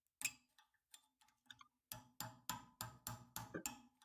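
Light hammer taps driving a door-hinge pin bushing out of a 1963 Impala hinge: a single tap, then after a pause a steady run of quick taps, about four a second.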